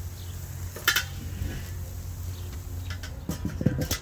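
Metal cooking utensils clinking against the grill while chicken is basted, with sharp clicks about a second in and several more near the end, over a steady low hum.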